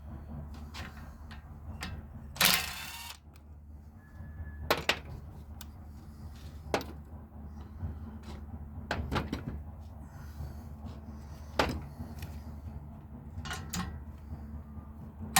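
Tools and brass valve parts being handled during disassembly: scattered metallic clicks and knocks, with a longer rattling clatter about two and a half seconds in and a sharper knock at the end. A steady low hum runs underneath.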